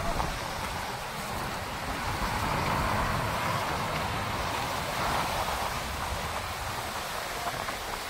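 Sea waves breaking and washing over rocks along the shore, with wind buffeting the microphone: a steady rush of noise with a low rumble that swells a little in the middle.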